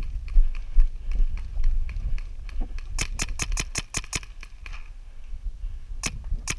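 Paintball marker firing a quick burst of about eight shots in just over a second, then two more shots near the end. Before the shots, wind and movement rumble on the microphone.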